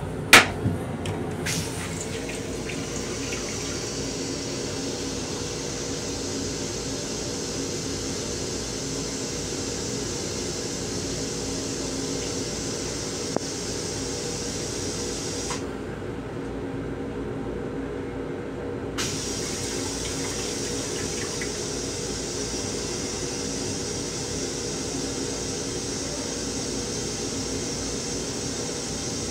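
Toilet on a Metro-North M7 railcar flushing: a sharp click near the start, then water running steadily into the stainless-steel bowl, over the railcar's steady hum.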